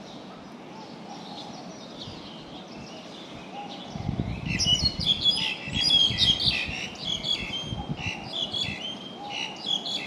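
A flock of small birds chirping and chattering: scattered faint calls at first, then from about four seconds in a dense, loud run of quick, high chirps, over a low rumble.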